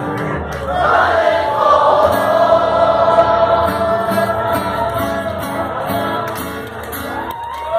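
Live band music with many voices singing the melody together, a crowd singing along with the band.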